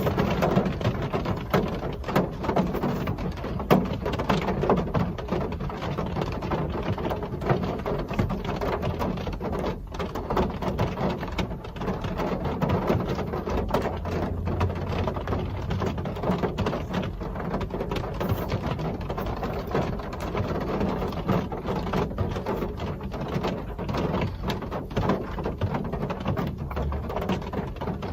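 Steady real rain falling and pattering on surfaces, dense and even, with many small drop ticks.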